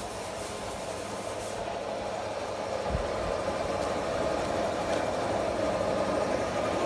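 A machine motor running steadily, getting a little louder about three seconds in.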